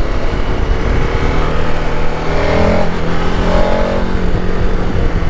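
Adventure motorcycle engine running at a steady note while riding along, with wind rush on the bike-mounted microphone.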